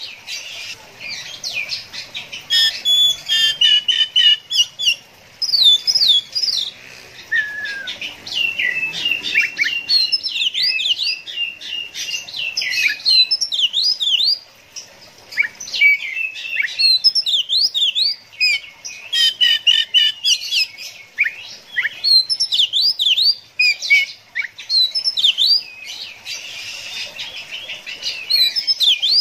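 Oriental magpie-robin singing a rapid, varied song of whistles, trills and chirping notes, with a brief pause about halfway through.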